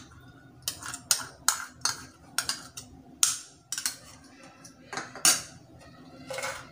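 A metal spoon clinking and tapping against bowls as ginger garlic paste is scraped out and onto raw chicken: a string of short sharp clicks, irregular at about one or two a second, the loudest a little after five seconds in.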